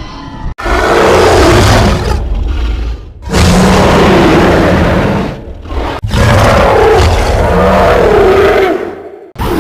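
Monster roar sound effects: three long, loud roars with a wavering pitch, the last the longest.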